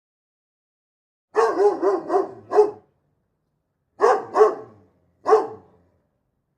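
Dog barking: a quick run of about five barks, then two barks, then a single bark.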